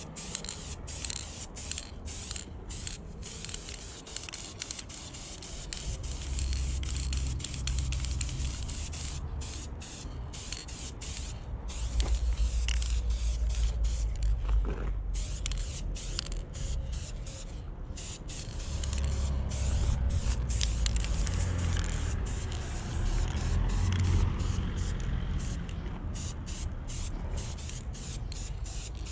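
Aerosol spray-paint can hissing in repeated bursts as paint is sprayed, with a low rumble underneath that swells and fades.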